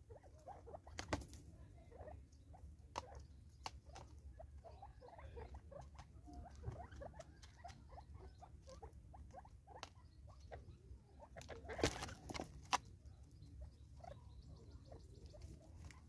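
Francolins pecking at seed in a plastic bottle feeder and on a wooden stump: an irregular run of small sharp taps and clicks, with louder knocks about a second in and again around twelve seconds in.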